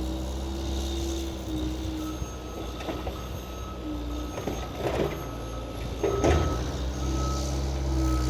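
Skid steer engine running under load with a steady low drone, its reversing alarm beeping from about two seconds in. Several clunks in the middle, likely the blade scraping and knocking on the pavement as snow is back-bladed.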